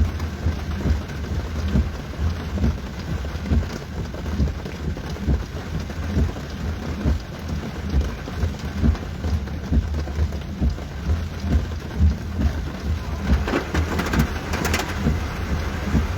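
Steady rain, with a constant deep rumble underneath and a short run of sharp taps near the end.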